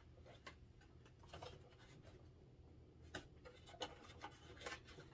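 Near silence with faint scratching and a few light clicks of fingers and fingernails working a plastic panel loose on a Haslab Razor Crest toy ship.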